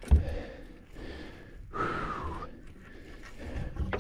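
A man breathing hard and sighing, with a low thump near the start.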